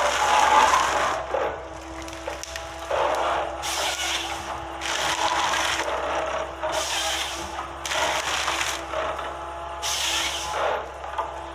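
Forestry harvester with a Waratah H414 head working a pine stem: the machine's engine and hydraulics keep up a steady hum, broken by repeated bursts of rushing noise, each under a second and about every one to two seconds, as the head feeds and processes the log.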